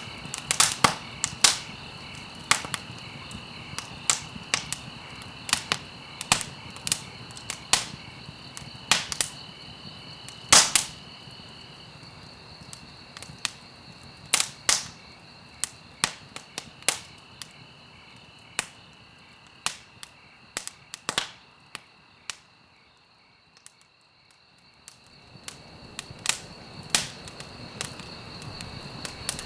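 Wood fire crackling in a fireplace: irregular sharp pops and snaps over a low hiss, with one louder pop about ten seconds in. The hiss thins out for a few seconds late on, then the crackling builds again.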